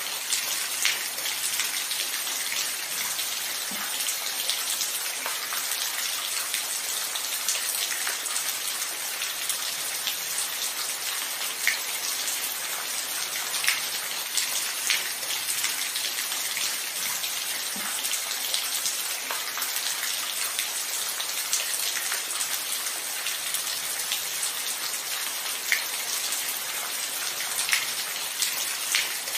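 Steady rain falling: a dense, even hiss with occasional sharper drop hits standing out from it.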